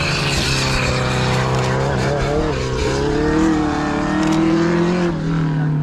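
Racing Mini Clubman's engine revving hard up a hill-climb course, its pitch dipping and climbing again several times as it brakes into and accelerates out of hairpin bends.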